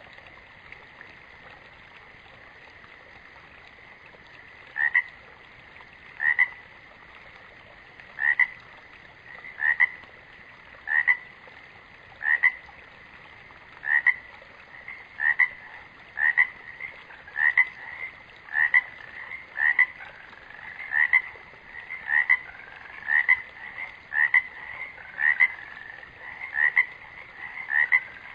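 A frog croaking in a repeated series of short calls, starting about five seconds in, about one every second and a half at first and quickening to about one a second, with a second caller joining near the end. Under the calls there is a faint steady high tone and background hiss.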